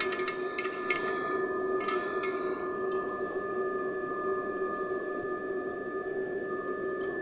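100 W pulsed laser cleaner working over a stainless steel weld seam: a steady high whine of several held tones over a hiss, with irregular crackles and snaps.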